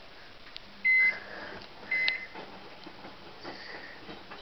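Microwave oven keypad beeping as its buttons are pressed to set the cooking time: two short high beeps about a second apart.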